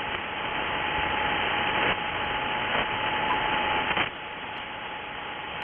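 Shortwave band noise from an HF transceiver's receiver in SSB mode: an even hiss with a steady whistle from a carrier on the frequency and a few static crackles, the noise dropping somewhat about four seconds in.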